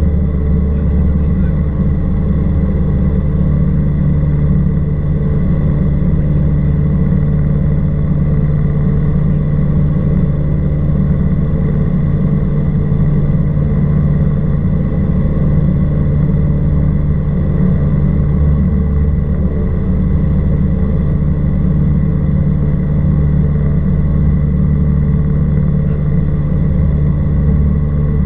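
Cessna 172R Skyhawk's four-cylinder Lycoming engine and propeller droning steadily in cruise flight: a deep, even hum with a thin high tone above it.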